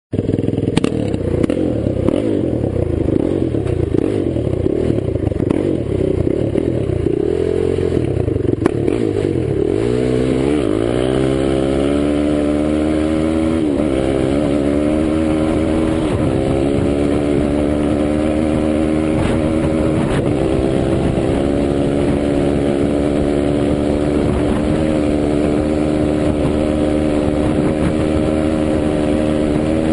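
Engine of a 2007 Honda TRX450ER sport quad, a single-cylinder four-stroke on its stock exhaust with the baffle removed, revving hard under load. The first ten seconds or so are rough, with clatter. After that the pitch climbs and drops at several upshifts, then holds high and steady.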